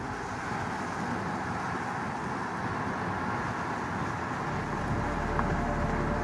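Steady rushing wind buffeting the microphone, with a fluttering low rumble that strengthens near the end.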